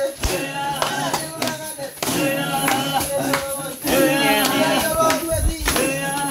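Maasai group singing a rhythmic traditional chant of several voices, with sharp beats about twice a second and a low thump about five seconds in.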